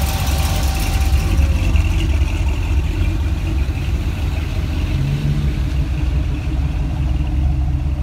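Vehicle engines running with a low, steady rumble as cars drive slowly past: a hot rod roadster, then pickup trucks.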